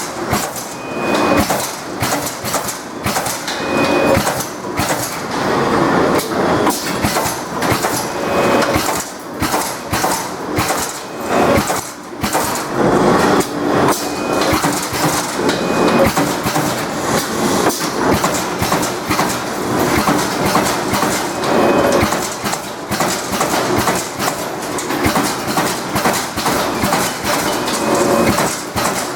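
CNC turret punch press punching sheet steel: a rapid, continuous run of loud metallic punch strokes as the sheet is moved and hit hole after hole, with short high tones from the machine recurring every couple of seconds.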